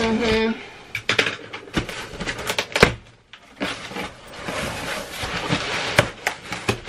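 Cardboard shipping box being opened by hand: a few sharp knocks and snaps, then a stretch of rustling and scraping as the flaps are pulled open.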